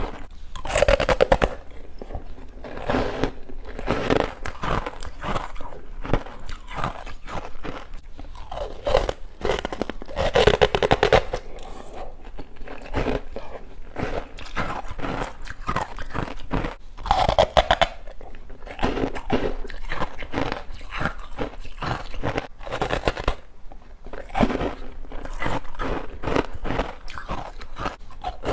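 Close crunching and chewing of humidifier frost with passion fruit: repeated crisp bites, each followed by a spell of crackly chewing.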